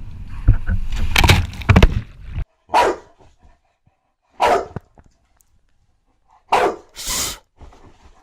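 A loud rushing noise with several sharp knocks, cut off abruptly about two and a half seconds in. Then a dog barks four times: single short barks with pauses between, the last two close together.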